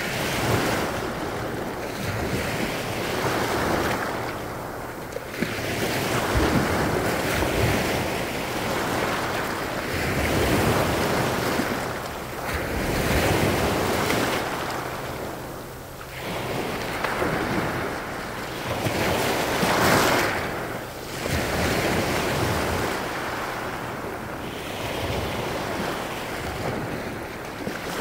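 Small Baltic Sea waves breaking and washing up over a pebble shore, the surf swelling and falling every few seconds, loudest about two-thirds of the way in.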